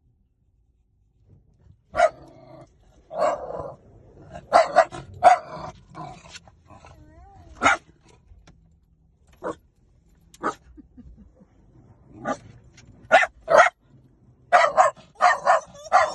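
A dog barking in short, sharp barks at irregular intervals, starting about two seconds in and ending in a quick run of barks.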